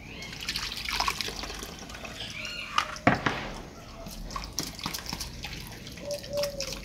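Red chile sauce poured and worked through a plastic strainer into a simmering pot of broth, liquid splashing and dripping, with a sharp knock about three seconds in.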